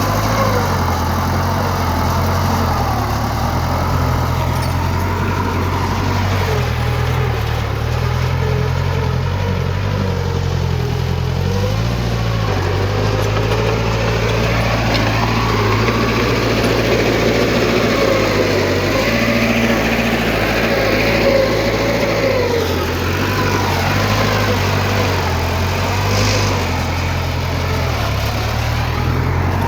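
Diesel engine of heavy earthmoving machinery running steadily, with a higher whine that wavers up and down in pitch over it.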